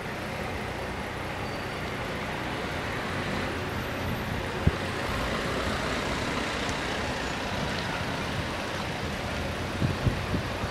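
Steady street traffic noise with idling road vehicles, a single sharp click about four and a half seconds in, and a few knocks near the end.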